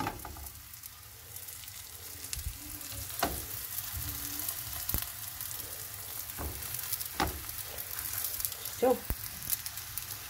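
Folded parcels of taco dough sizzling as they fry in hot oil in a frying pan: a steady hiss broken by a few sharp clicks.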